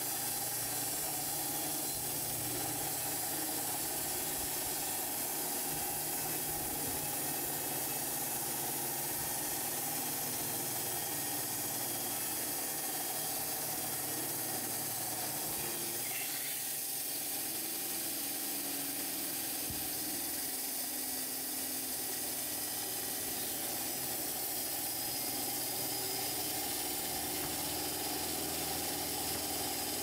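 Band sawmill running steadily, its band blade sawing lengthwise through a pear log: a constant mechanical hum with hiss, no pauses.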